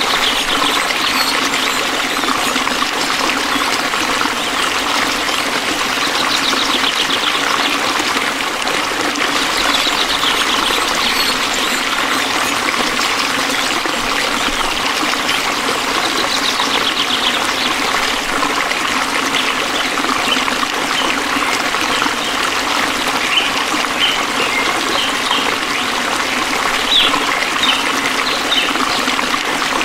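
Stream water trickling and babbling steadily. Every few seconds a rapid pulsing trill of small night creatures rises above it, and near the end there are short, high chirps.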